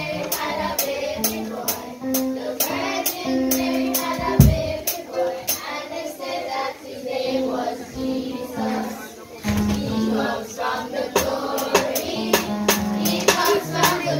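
Children singing a song to a musical accompaniment with a steady percussion beat.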